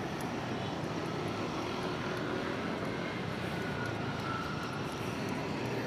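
Steady road traffic noise from cars passing on the road alongside.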